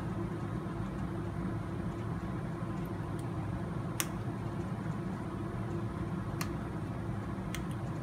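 Steady low mechanical hum of the room, with a few light clicks of small RC parts being handled, a bearing and axle shaft fitted to a steering knuckle. The sharpest click comes about four seconds in.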